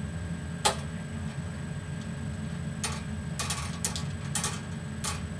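Numbered lottery balls clicking against each other in a lottery device: a few irregular sharp clicks, one alone about half a second in, then a cluster from about three to four and a half seconds in.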